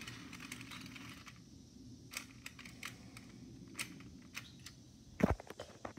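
Toy subway train set's small electric motor whirring along the track, then stopping about a second and a half in. Scattered light clicks follow, with one louder knock about five seconds in.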